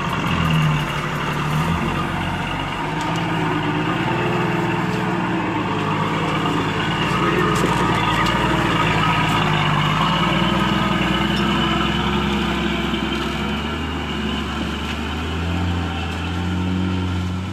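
Diesel engine of a lorry heavily loaded with sugarcane, running as it drives slowly along a rough dirt track. The low engine note grows stronger near the end.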